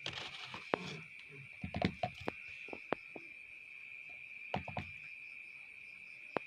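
A continuous high-pitched insect trill, steady throughout, with scattered sharp clicks and knocks over it, busiest in the first two seconds and again a little past the middle.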